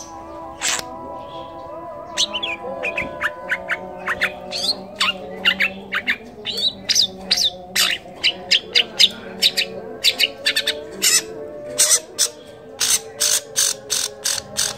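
Long-tailed shrike (cendet) singing a rapid string of short, sharp chirps and harsh notes, several a second and denser in the second half. Its song is packed with mimicked calls of other birds.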